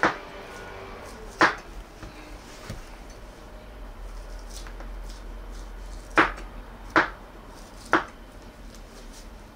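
Knife cutting the skin off a ham on a cutting board: five sharp knocks (one at the start, one about a second and a half in, then three about a second apart near the end) with quieter handling noise between.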